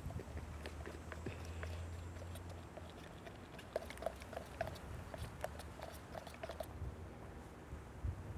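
Wooden stir stick scraping and tapping inside a plastic mixing cup as tinted resin is stirred: a run of faint, irregular small clicks. A faint low hum runs under the first couple of seconds.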